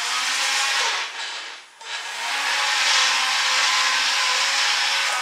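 The two small electric motors and propellers from a toy RC helicopter spinning at speed, a steady whirring buzz. It drops away briefly about one and a half seconds in, then spins back up and holds.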